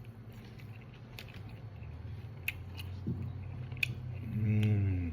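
Close-up eating sounds: soft chewing with a few sharp clicks, then a hummed "mmm" from the eater near the end, the loudest sound here.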